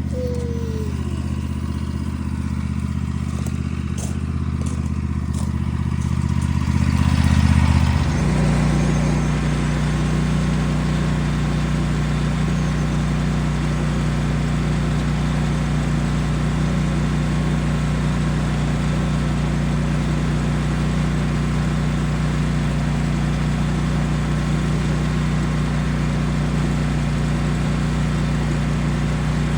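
Small gasoline engine running steadily. About eight seconds in its note swells, drops to a lower, heavier pitch and a broad rushing noise joins, and then it holds steady.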